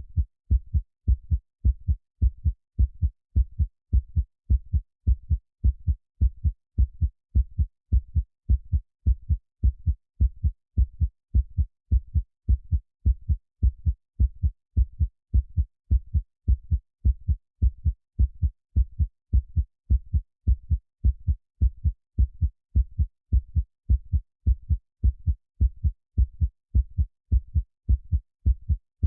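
Heartbeat sound played for soothing a baby: a steady, even rhythm of low, muffled double beats (lub-dub), with near silence between each pair.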